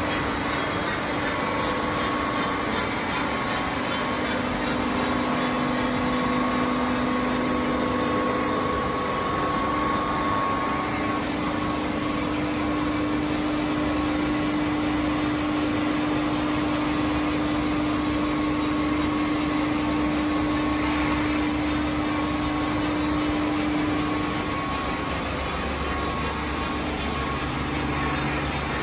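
Centerless grinder running, its abrasive grinding wheel working a steel bar with a steady gritty hiss over a steady hum from the 50 hp wheel motor and drives. The sound eases a little about four seconds before the end.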